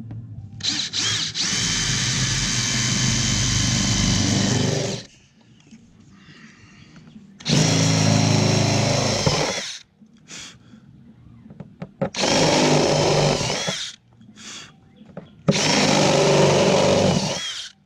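DeWalt cordless drill with a step drill bit cutting into the Airstream's aluminum roof skin, run in four bursts of a few seconds each, the first the longest.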